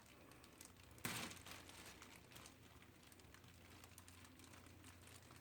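Near silence: faint room tone with a low hum and scattered small clicks, and one brief noisy rustle about a second in.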